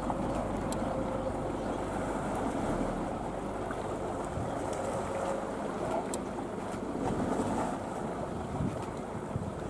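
Steady outdoor wind noise buffeting the microphone, with a few faint clicks.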